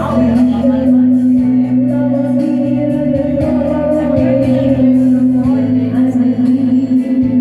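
A woman singing into a microphone over a karaoke backing track, with one long held note through most of it.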